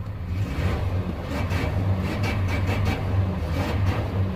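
A car engine running with a loud, steady deep rumble, with a few sharp crackles in the middle.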